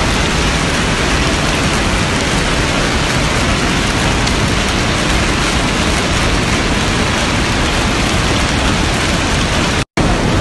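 Hail and rain falling hard on pavement and parked cars: a loud, steady hiss of countless small impacts, broken by a brief dropout just before the end.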